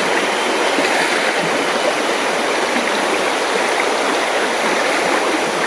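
Mountain river rushing steadily, a constant even sound of flowing water.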